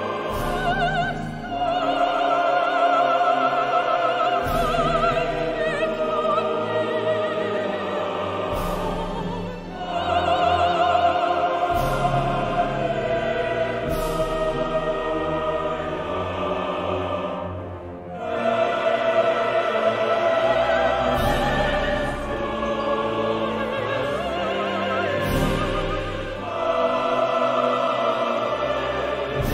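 Classical music: voices singing with vibrato over a symphony orchestra, in long phrases with brief dips between them.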